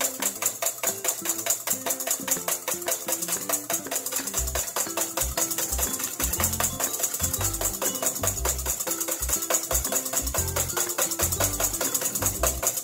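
Wire whisk beating egg whites to a froth in a stainless steel bowl: a fast, even rattle of strokes against the metal. Background music plays underneath, its bass coming in about four seconds in.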